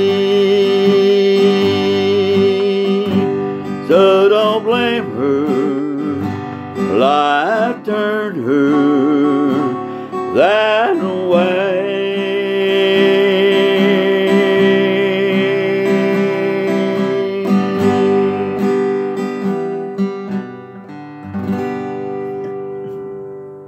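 Acoustic guitar playing the closing bars of a slow song, with a man's voice singing long held notes with vibrato over it for several seconds. The last chord rings and fades away near the end.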